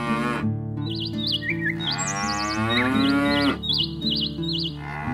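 Cows mooing: a long moo from about two seconds in to three and a half, with the end of one moo just after the start and another beginning near the end. Light background music and repeated warbling bird chirps run underneath.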